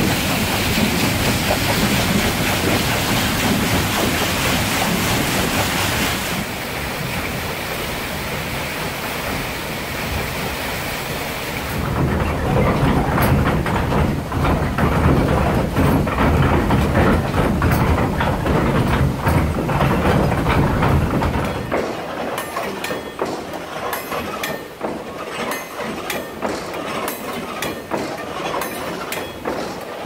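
Water-powered sawmill starting up. Water rushes through its wooden flume for the first several seconds. The turning water wheel and wooden gearing then add a heavy rumble. In the last third the rumble falls away into rapid, irregular clicking and knocking of the mill machinery.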